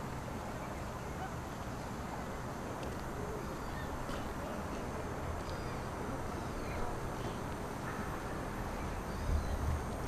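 Outdoor park ambience: a steady wash of background noise with low rumble, a few faint short chirps scattered through it, and a brief low bump near the end.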